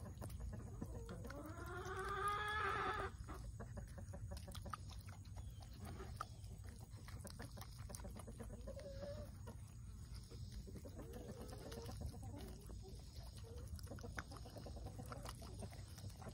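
White domestic turkeys pecking at kitchen scraps on straw: a run of small clicks and taps from beaks on corn cobs and eggshells. One loud, drawn-out fowl call rises and falls about two seconds in, and a few soft short calls follow later.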